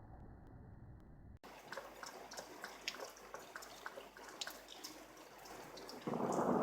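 Rain during a thunderstorm: scattered water drops dripping and pattering onto surfaces, then a much louder burst of thunder and rain sets in near the end.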